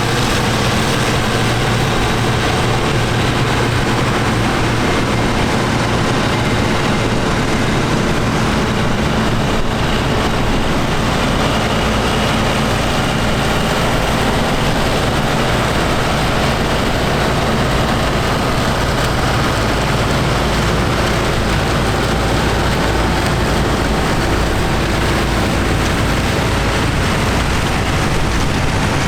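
Farm machinery engine running steadily at a constant speed, a continuous even drone.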